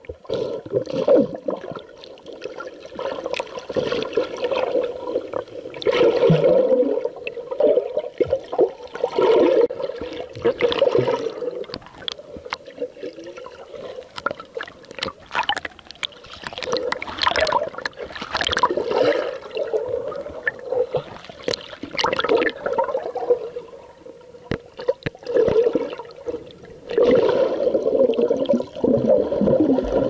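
Water sloshing and gurgling around an underwater camera submerged in shallow sea water, coming in irregular surges with scattered sharp clicks and knocks.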